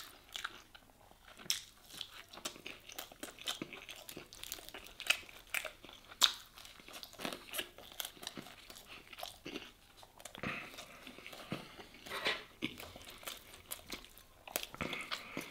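A person biting and chewing a toasted bread sandwich with melted cheese and sujuk sausage, with many short crisp crunches throughout.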